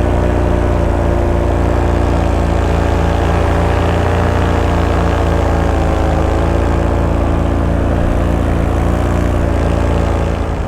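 Paramotor engine and propeller running steadily at flying power, with a regular beat and a slight dip in pitch about midway.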